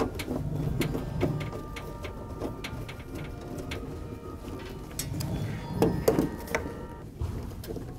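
Hand screwdriver tightening machine screws into the sheet-metal door panel of a soda vending machine, with irregular clicks and scrapes of metal on metal as the screws turn.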